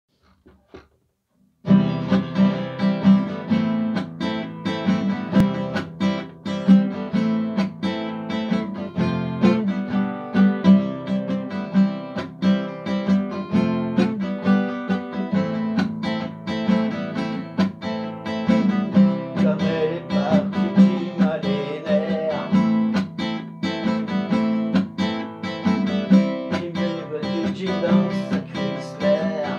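Solo classical guitar with nylon strings, chords picked and strummed as an instrumental intro, starting about two seconds in.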